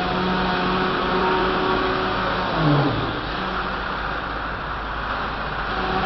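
Belt-driven machinery of a steam-powered sawmill running steadily, with a low mechanical hum. A little under three seconds in it swells briefly and drops in pitch, then runs on more evenly.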